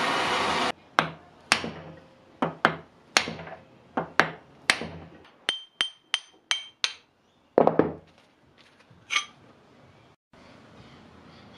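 Gas torch hissing, cut off abruptly less than a second in, then a steel hammer striking the rusted antique wrench held in a bench vise: over a dozen sharp blows, several with a bright metallic ring, knocking its heat-loosened, rust-seized parts apart.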